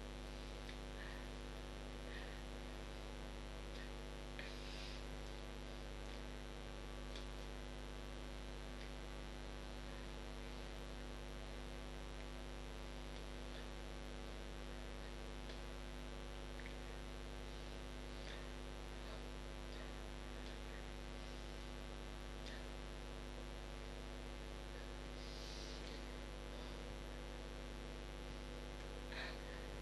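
Steady electrical mains hum with many evenly spaced overtones, with a few faint clicks here and there.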